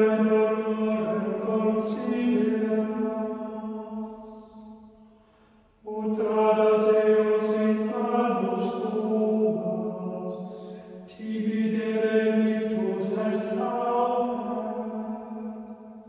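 Latin psalm verse chanted as plainchant, held mostly on one reciting note. Three phrases, with short breaks about five and eleven seconds in.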